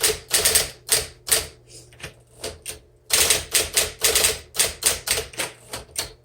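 Electric typewriter, a 1959 Smith Corona Electric, being typed on quickly: a rapid run of sharp keystroke clacks. The strokes thin out to a few lighter taps about halfway, then the fast typing resumes.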